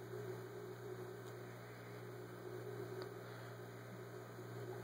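Faint, steady low electrical hum with light background noise; no distinct taps or machine sounds stand out.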